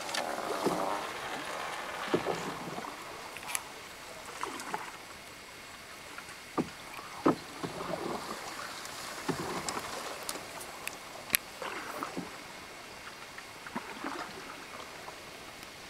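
A small boat moving through marsh water with no engine running: water splashing and swishing along the hull, with irregular sharp knocks every few seconds, the loudest about eleven seconds in.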